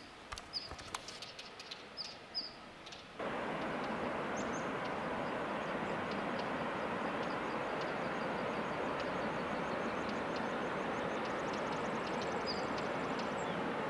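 A few short, high bird chirps over a quiet background. About three seconds in, a steady rushing noise cuts in suddenly and continues, with a few faint chirps and a quick high ticking above it.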